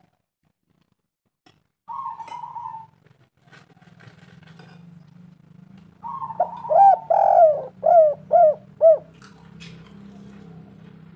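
Spotted dove cooing: a short coo about two seconds in, then a louder phrase of a coo followed by five quick arching notes. A low steady hum runs underneath.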